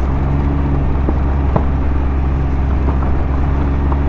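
Motorcycle engine running steadily at cruising speed with wind rushing over a rider-worn mic, and a few faint ticks.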